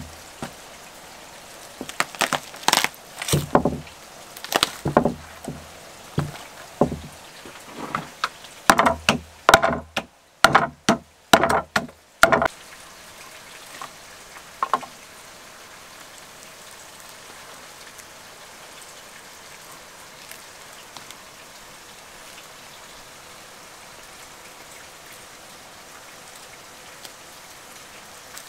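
Roasted lamb ribs being broken apart by hand: a quick string of sharp cracks and crunches as the rib bones snap and the crisp crust tears, crowded into the first dozen seconds with one more crack a little later. After that only a steady faint hiss remains.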